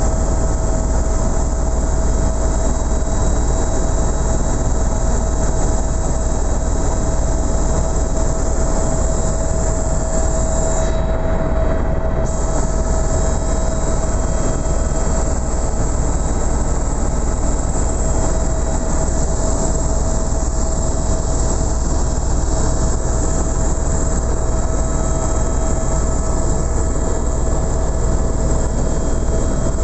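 Helicopter cabin noise: a steady, loud drone of rotor and turbine with a constant whine running through it.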